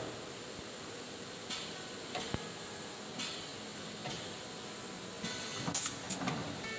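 Inline ink-marking printer for PVC pipe cycling, its printing head shuttling back and forth over the inked plate with a few short hisses of air and a sharp click, over steady machine noise.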